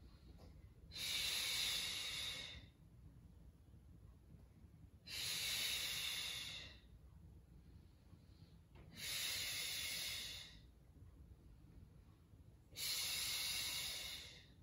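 A woman's forceful Pilates exhales through the mouth, one on each chest-lift curl-up: four long, breathy exhales about four seconds apart.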